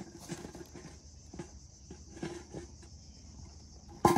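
Steady high-pitched insect buzzing, with scattered light knocks and a louder clatter near the end.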